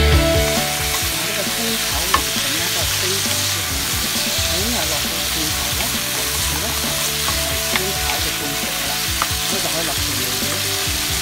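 Asparagus and garlic sizzling in hot oil in a frying pan while being stirred with a wooden spatula: a steady sizzle with a few sharp clicks of the spatula against the pan.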